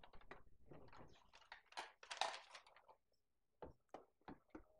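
Paper rustling as a folded instruction sheet is opened and handled, then four quick, sharp clicks of small plastic toy pieces near the end.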